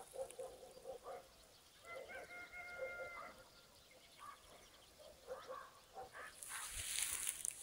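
Faint, distant farmyard fowl calling: a rooster crows, one long held call about two seconds in, with shorter fowl calls before and after it.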